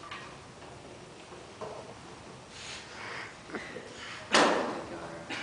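Small knocks and clatters of stage props being handled at a table, then one loud, sharp thump a little over four seconds in.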